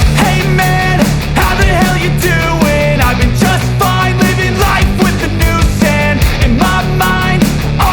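Loud background music with a steady, dense beat and a wavering melodic line above it.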